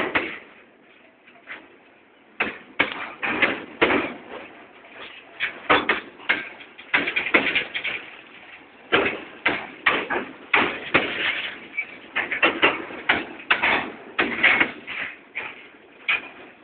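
Freight train of loaded flatcars rolling slowly past, giving a run of irregular metallic clanks and knocks, sparse for the first couple of seconds and then coming thick and fast.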